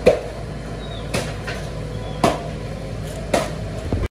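Meat cleaver chopping fish on a wooden log chopping block: sharp blows about a second apart, the first the loudest, over a steady low hum.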